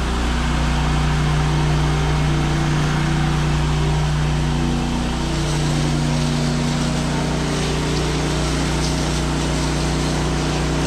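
Pressure washer running steadily: a constant engine drone under the hiss of the wand spraying a mist of house-wash solution at low downstream pressure.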